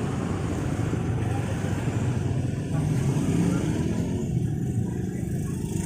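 Steady low rumble of a running motor vehicle, with road or wind noise.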